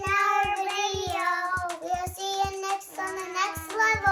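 A child singing long held notes over music with a steady beat.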